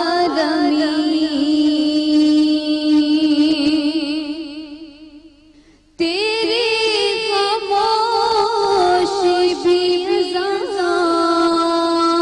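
A woman singing solo: a slow melody with ornamented runs and long held notes. Her voice fades away on a long note, then the next phrase starts abruptly about six seconds in.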